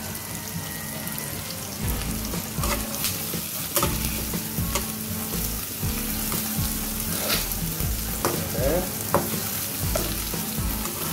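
Garlic, onion and green chilies sizzling as they sauté in a nonstick wok, stirred with a metal spatula that scrapes and clicks against the pan many times.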